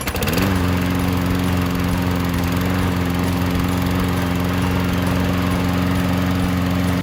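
Lawn mower's small engine running at speed. It comes up to speed in the first half second, then runs steady and even.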